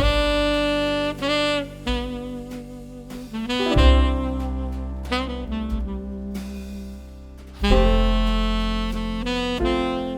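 Background music: a jazzy tune with a saxophone-like lead melody over a bass line.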